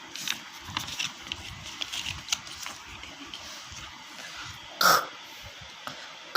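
Low room noise with a few faint clicks. In the second half, a woman's voice says a short one-syllable word twice, about a second and a half apart.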